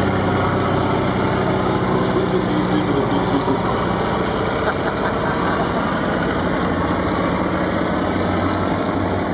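Fieseler Storch's piston engine droning steadily as the aircraft flies slowly overhead with flaps extended, in minimum-speed slow flight.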